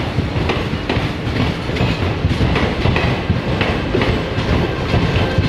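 Indian Railways passenger coaches rolling slowly past, their wheels clattering over the rail joints in a steady rhythm of clacks over a continuous rumble.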